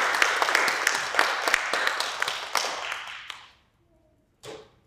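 Audience applauding at the end of a talk, dying away about three seconds in. A single short noise follows near the end.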